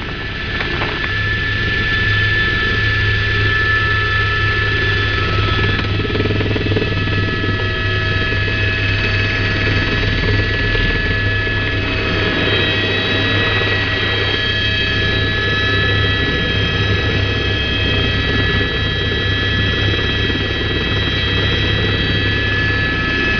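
Helicopter in flight, heard from inside the cabin: a steady low rotor drone with a high turbine whine over it, growing a little louder about a second in.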